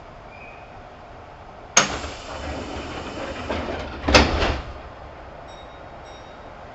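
Sliding doors of a Kintetsu 2800 series train closing: a sharp click and a rush of noise as they start to move, then a loud bang as they shut about two seconds later.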